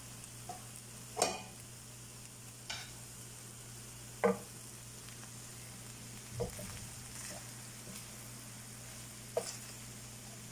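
Rice noodles and instant noodles with vegetables frying in a pan with a faint steady sizzle, while a cooking utensil stirs them, knocking or scraping against the pan about five times. A low steady hum runs underneath.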